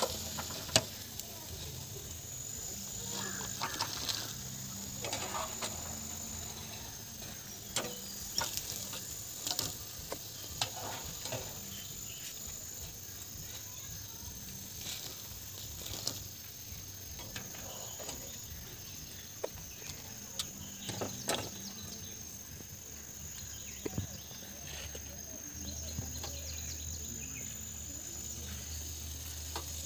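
Insects trilling, a high thin tone that drops in and out again and again, with scattered light clicks and knocks.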